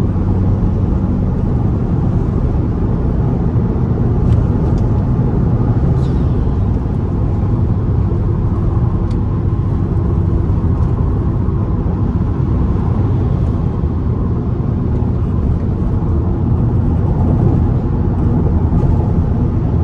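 Fiat Bravo T-Jet's turbocharged four-cylinder engine running at a steady cruise, with tyre and road noise, the level even throughout.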